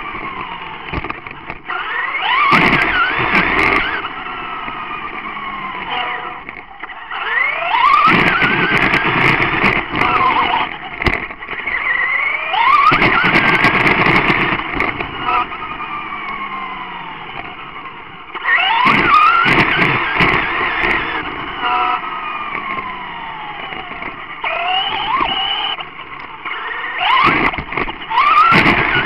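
Traxxas Rustler RC truck running, heard from a camera on the truck itself. Its electric motor whines up and down in pitch through about five bursts of throttle, over tyre noise on asphalt, with sharp knocks from bumps and jolts.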